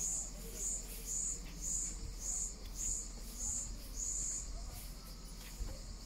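An insect chirping in a steady rhythm of short, high-pitched pulses, about two a second, with one longer pulse a little past the middle.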